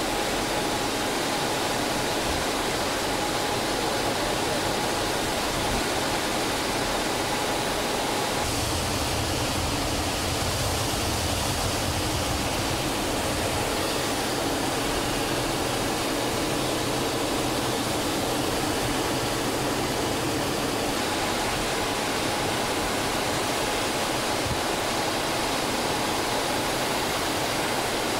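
Steady jet noise inside the cockpit of an L-39 Albatros trainer in flight: its AI-25TL turbofan and the rush of air over the canopy. A steady whine fades about eight seconds in, while a deeper rumble rises for the next dozen seconds as the jet banks.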